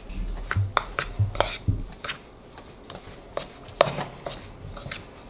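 Brownie dough being mixed and pressed by hand in a bowl: irregular sharp clicks and knocks against the bowl, with a few soft thuds in the first two seconds.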